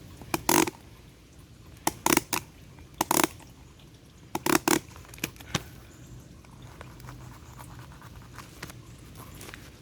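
Used pleated-paper oil filter element being handled and pulled apart for inspection: a series of short, sharp scrapes and crinkles over the first half or so, then only a faint hum.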